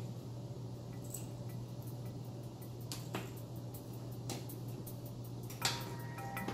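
Homemade glue slime being worked and pulled apart by hand, giving a few sharp wet clicks and pops as it comes off the fingers, the loudest near the end, over a steady low hum.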